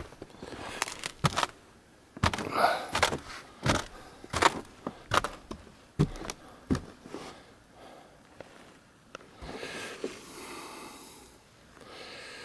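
Footsteps crunching in snow, a sharp crunch about every three-quarters of a second, with softer breathy noise near the end.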